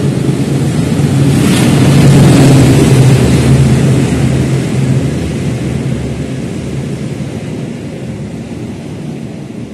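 Diesel locomotive hauling a passenger train passes close by at speed. Its engine drone is steady and loudest a couple of seconds in, then the rolling rumble of the coaches going past fades away toward the end.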